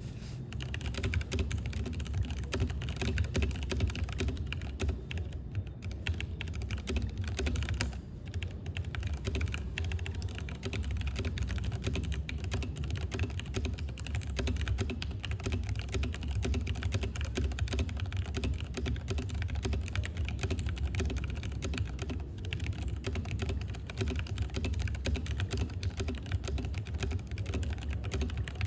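Continuous fast typing on a Leopold FC660M mechanical keyboard with tactile brown switches: a dense run of keystroke clacks with a few brief pauses.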